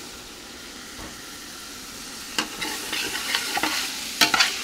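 Onion, smoked meat and sausage sizzling in lard in a large stainless steel pot, steaming with wine vinegar just added. From about two and a half seconds in, a spoon stirs the pot with irregular scraping strokes.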